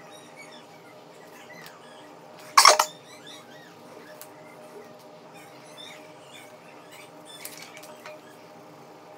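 Many faint, high, short chirping squeaks over a steady low hum, with one loud brief rustle about two and a half seconds in and a softer one near the end.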